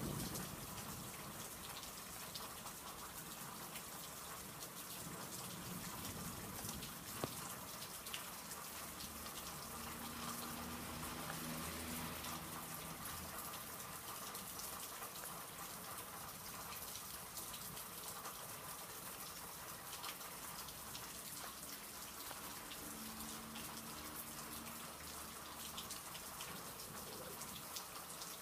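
Steady rain falling and pattering during a thunderstorm, with a low rumble swelling twice, about a third of the way in and again near the end.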